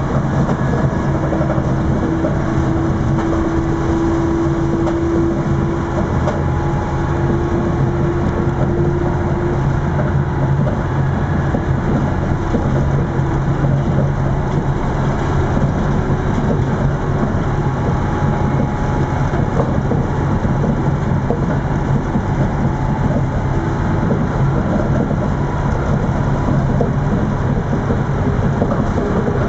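Metrowagonmash 81-731.25 diesel multiple unit running at speed during a 0–100 km/h acceleration: a steady diesel engine drone under a loud, even rushing of wheels on rail.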